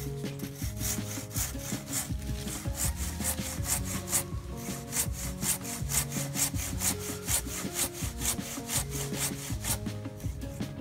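Hand saw cutting through a dry fallen tree branch, the blade rasping in quick, even back-and-forth strokes, stopping shortly before the end.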